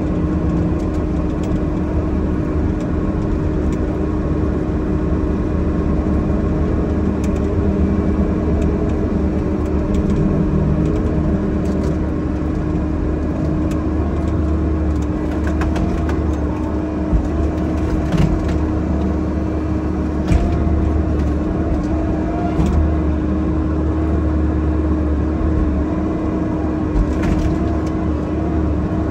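Bobcat E50 mini excavator's diesel engine and hydraulics running steadily, heard from inside the closed cab, with a steady hum throughout. A few sharp knocks and cracks come in the second half as the machine works felled trees.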